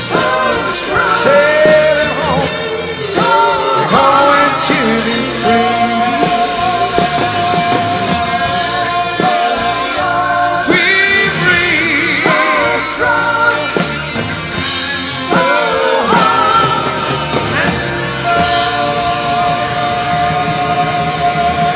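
A rock song with a singer over a band, with long held sung notes twice.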